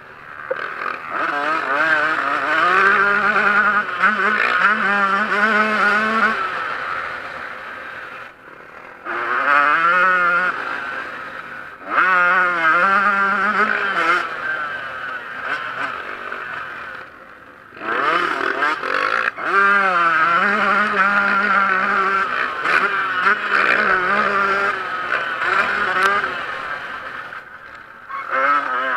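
Yamaha YZ125 two-stroke motocross engine revving hard, its pitch climbing and dropping through the gears. The throttle is shut off several times and snapped open again, and each time the engine comes back with a sudden rise.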